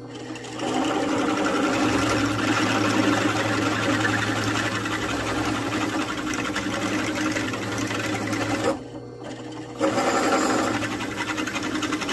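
Drill press boring the threads out of a hard grade 8 3/8-inch nut with a 25/64 bit, run slowly with cutting oil: a steady motor hum with the bit cutting the steel. The drilling stops for about a second around nine seconds in, then starts again.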